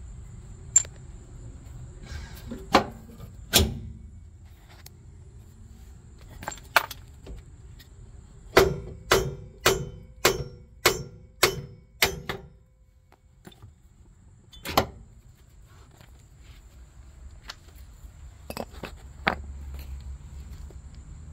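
Hand tools on a car's rear suspension: scattered metallic clicks and clanks, then a run of about seven evenly spaced sharp metal strikes, close to two a second, around the middle.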